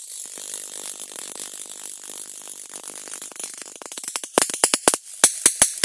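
High-voltage arc from an oil-immersed X-ray transformer fed through a variac and ballast at about 10 volts input. First comes a steady fizzing crackle of a small arc. About four seconds in it breaks into loud, sharp spark cracks, several a second, as the arc jumps to a tool brought up to the pot.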